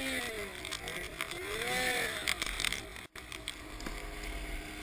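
Snowmobile engine revving up and falling back twice, with scattered sharp knocks picked up by the helmet-mounted camera. The sound cuts out briefly about three seconds in, after which an engine runs more steadily.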